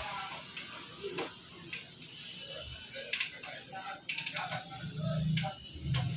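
Scattered small metal clicks and clinks of parts and tools being handled while a Royal Enfield 350 engine's timing gears are assembled, with a low hum coming in about five seconds in.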